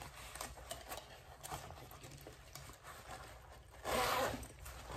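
Zipper on a Kipling bag being worked open: faint scratching and fabric rustling, then one louder zip about four seconds in.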